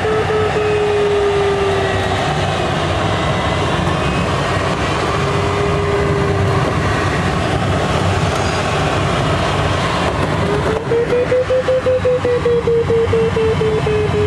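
Steady rush of air over a glider in flight, with the variometer's electronic tone sliding slowly up and down in pitch. About ten seconds in the tone returns, rises and breaks into quick beeps for a couple of seconds, the climb signal, then falls back to a steady lower tone.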